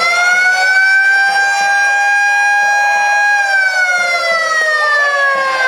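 Stadium siren signalling the start of play at a Japanese high school baseball game: one loud, steady wail that begins to fall in pitch a little past halfway and keeps winding down slowly to the end.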